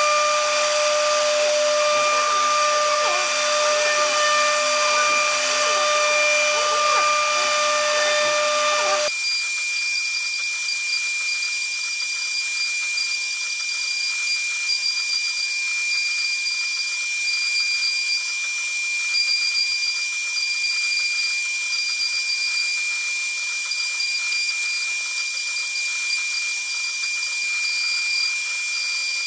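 CNC router's HQD spindle running at a steady high-pitched whine while its bit carves a relief groove into MDF, with a hiss from the cut. About a third of the way in the sound changes abruptly: the lower tones drop away, leaving a thinner high whine and hiss.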